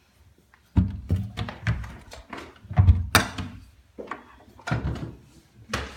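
A run of thumps and knocks, about a dozen over several seconds, starting just under a second in.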